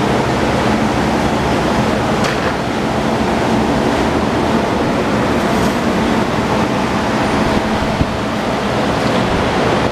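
Ducati Monster 821's 821 cc L-twin engine idling steadily through aftermarket twin carbon-fibre silencers.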